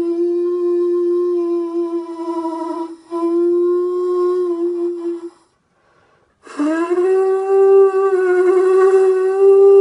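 Homemade conch shell trumpet, its tail cut off to form a mouthpiece, blown in a steady horn-like note with a brief break partway through. After a short pause about halfway in, a louder blast starts, scooping up to a slightly higher pitch and holding.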